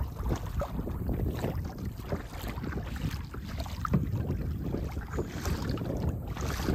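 Kayak paddle strokes splashing and dripping in the water, with wind buffeting the microphone.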